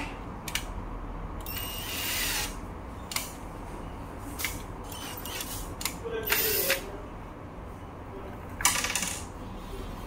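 Three short bursts of a cordless drill running, each lasting under a second, with single clicks and knocks of parts being handled in between.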